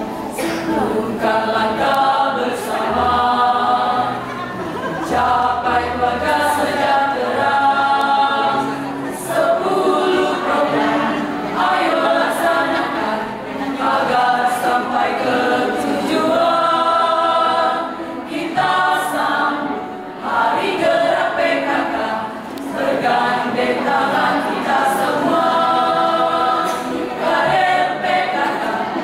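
Choir singing a PKK march song in phrases a few seconds long, with short breaks between them.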